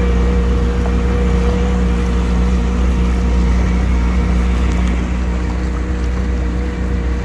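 Kawasaki Ultra 310X jet ski's supercharged four-cylinder engine running steadily at low, no-wake speed, a constant drone with water churning along the hull.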